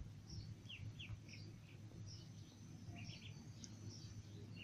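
Ducklings peeping: scattered short, high calls, a few a second, some sliding in pitch, over a faint steady low hum.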